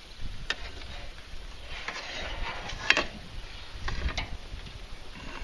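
Cooking utensils clinking and scraping against the grill and a platter as grilled pork loin and vegetables are slid off a charcoal grill: a few scattered clicks and knocks, the sharpest about three seconds in, over a low rumble.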